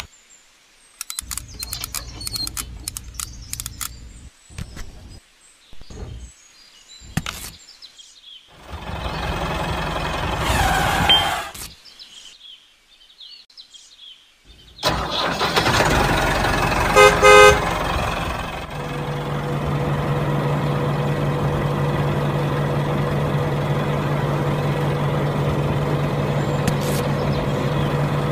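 Small plastic and metal parts clicking as a miniature tractor's drive shaft is fitted. Later the model tractor starts up with a short horn-like toot, then settles into a steady motor hum as it turns its power take-off shaft.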